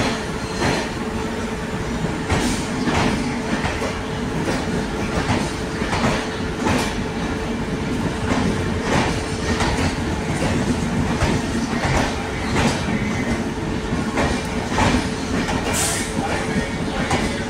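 Indian Railways LHB passenger coaches rolling past at low speed, their wheels clicking over rail joints in a steady clickety-clack, roughly one to two clicks a second, over a continuous rolling rumble with a steady tone underneath.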